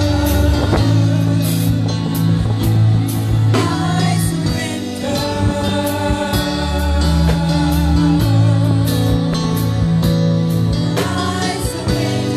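Gospel music: singing over long held chords and bass notes, with regular drum and cymbal hits.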